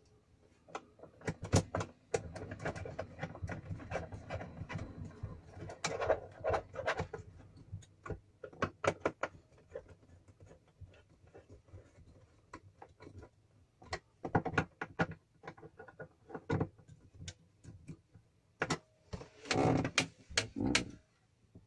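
Hands fitting a diesel heater's display controller back into place: a run of irregular plastic clicks and knocks with rustling of the wiring, busiest in the first few seconds and again near the end.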